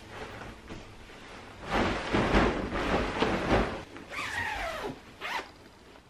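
Bedding rustling and flapping as freshly washed sheets and a duvet are handled and spread over a bed, loudest in the middle, followed about four seconds in by a short sliding rasp that falls in pitch.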